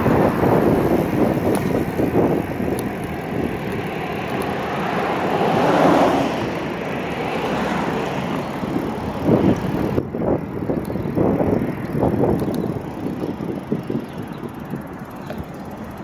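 Wind buffeting the microphone, mixed with tyre and road noise from a moving e-bike. The noise swells once about six seconds in, then thins and grows quieter after about ten seconds as the bike slows toward the curb.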